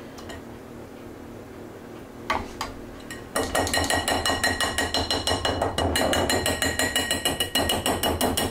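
Metal mesh sieve tapped rapidly against the rim of a bowl to work soup through the mesh. Two single knocks come first, then about three seconds in a fast, steady run of ringing metallic taps begins, several a second.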